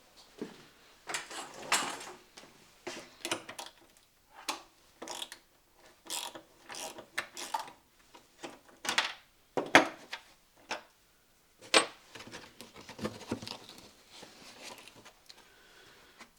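Irregular clicking, rattling and knocking of hands working with car parts and tools, a dozen or so sharp clicks and knocks spaced unevenly.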